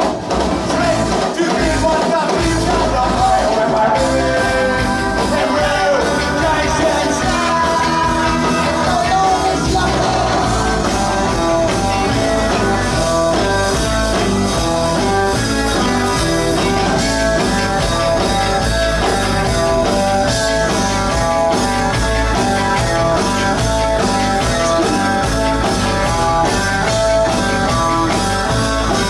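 Live rock band playing loudly: electric guitars and drums with a singer.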